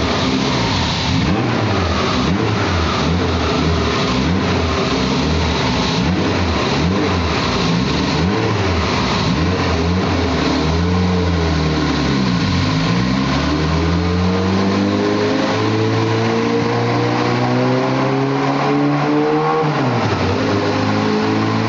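A modified car's engine heard from inside the cabin, revving up and down quickly, then climbing steadily for several seconds, dropping sharply near the end and climbing again.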